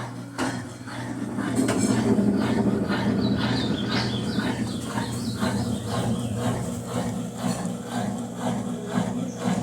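Consul CWH11 washing machine spinning, a steady hum with a rhythmic rubbing knock about twice a second: the excessive spin-cycle noise this machine is known to make.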